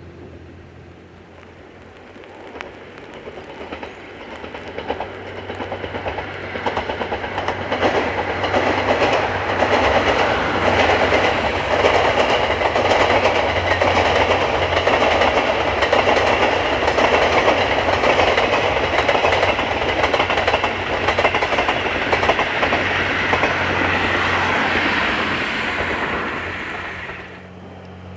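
Diesel train passing, its wheels clicking rapidly over the rail joints. The sound builds over several seconds, stays loud for most of the time, then cuts off abruptly near the end.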